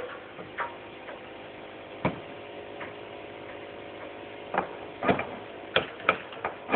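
Nail gun firing nails into siding, heard as sharp clicks at irregular intervals, with several in quick succession near the end, over a faint steady hum.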